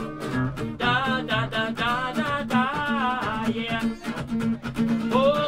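Song playing: a voice singing over a plucked guitar accompaniment with a steady beat.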